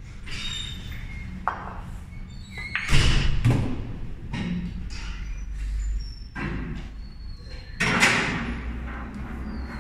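Sharp knocks of a pool cue and pool balls on a pool table, loudest about three seconds in and again about eight seconds in, with a low rumble between them.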